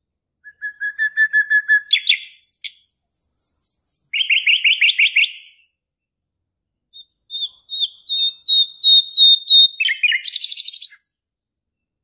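Small caged songbird singing two phrases of rapid, evenly repeated notes, each phrase a string of trills that jump from one pitch to another, with a pause of about a second and a half between them.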